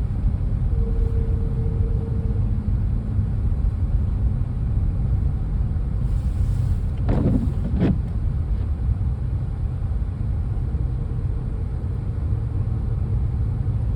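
Steady low rumble of a car driving slowly through a snowstorm, heard from inside the cabin: tyre and engine noise. About seven seconds in there is one brief squeaking sweep.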